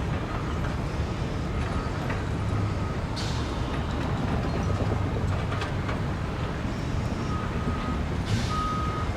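A construction vehicle's reversing alarm beeping, one steady-pitched beep about every second, faint at first and clearer near the end, over a steady rumble of engines and traffic. Two short hisses come about three seconds in and again near the end.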